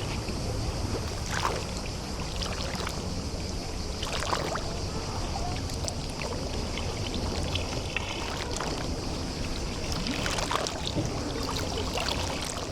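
Small waves lapping and washing at the water's edge of a sea bay, with a few sharper splashes about a second and a half in, about four seconds in, and again near the end.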